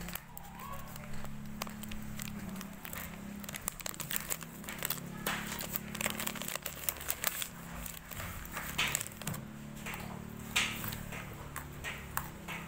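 Small plastic or foil packet crinkling and crackling in irregular bursts as it is handled in the hand.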